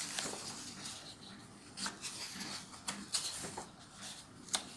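Paper pages of a paperback coloring book being turned and smoothed flat by hand: soft rustling broken by several sharp paper crackles.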